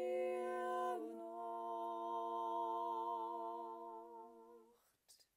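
Several overdubbed a cappella voices of one woman sounding a held chord in close harmony. The chord shifts about a second in, is held, then fades out near the end, followed by a small click.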